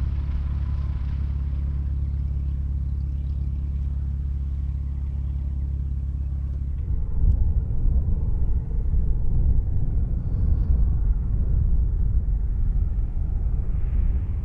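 A light aircraft's piston engine giving a steady low drone that, about seven seconds in, jumps to a louder, ragged rumble, as when power comes up.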